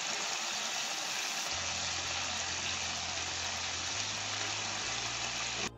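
Chicken pieces sizzling in hot oil in a kadai, a steady hiss that cuts off suddenly near the end. The chicken is nearly done, frying dry with no water left.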